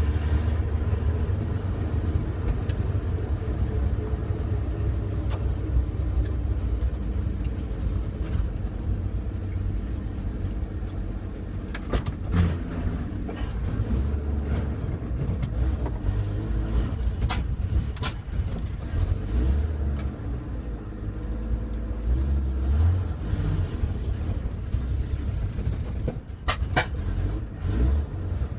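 Chevrolet C10 pickup on the move, its engine running under load as a steady low rumble. A few short sharp knocks come through at scattered moments.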